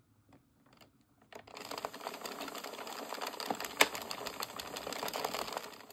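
Hand-cranked 22-needle circular knitting machine running, starting about a second and a half in: a steady, rapid clatter of small plastic clicks as the needles rise and fall knitting plain rounds.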